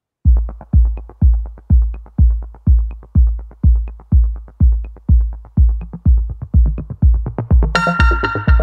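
Electronic dance music: a steady kick drum beat, about two beats a second, with synth chords coming in near the end.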